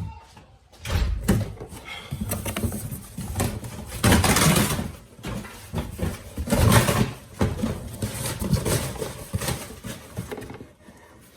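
Irregular handling noises: knocks, scrapes and rustles of things being moved about, with a longer scraping rush about four seconds in.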